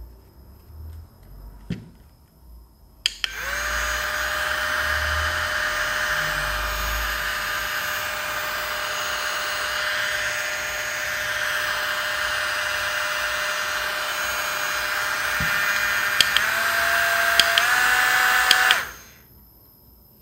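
Handheld bladeless mini fan switched on with a click about three seconds in: a steady high motor whine with a hiss of air. Near the end, two button clicks step it up to higher speeds, each a little higher in pitch, and then it cuts off.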